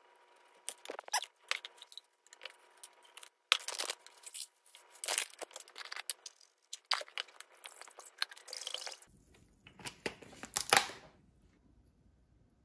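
Irregular crunching, scraping and clicking of hands-on kitchen prep at a glass mixing bowl: salt, liquid and paper cups being handled as a salty broth is mixed.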